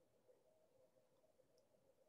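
Near silence: room tone with a very faint steady hum.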